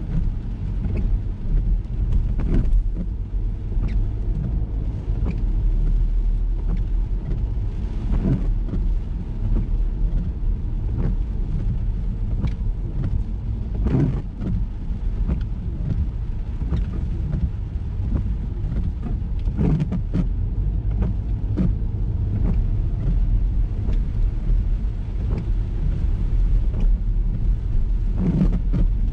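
A Ford EcoSport driving on a wet road, a steady low rumble of engine and tyres, with scattered short sharp ticks and knocks.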